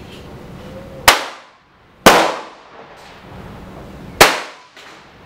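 Three gunshots: one about a second in, the next a second later, and a third about two seconds after that. Each is a sharp crack followed by a short fading echo.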